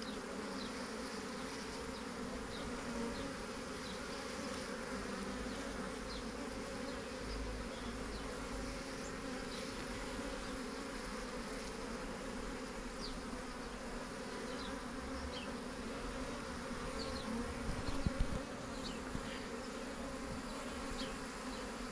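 Steady hum of a honey bee swarm, many wings buzzing at once, as the bees walk into and settle in a hive box.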